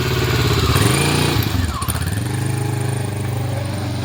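Kawasaki Versys 650 parallel-twin motorcycle engine running. Its pitch rises and falls once about a second in, then holds steady. With a newly replaced fuel pump it sounds quite normal, without the stutter and power loss it had.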